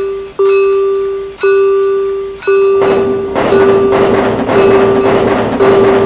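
Railroad crossing warning bell ringing about once a second, each stroke fading before the next. About three seconds in, the rushing noise of a train passing through the crossing joins it.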